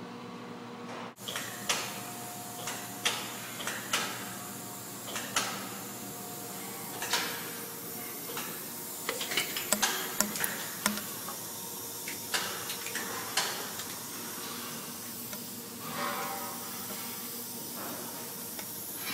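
Machine-shop background of steady machinery hum, broken by irregular metallic clanks and knocks, thickest about halfway through.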